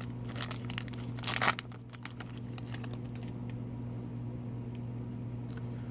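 A hockey card pack's wrapper crinkling and tearing as it is opened, in a quick run of crackles over the first second and a half. After that only a steady low hum remains.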